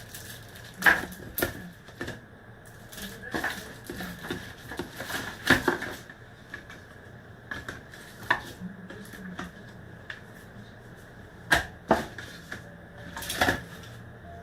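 Irregular sharp clicks and taps of a phone, cable clips and small tools being handled on a workbench, over a faint steady high tone.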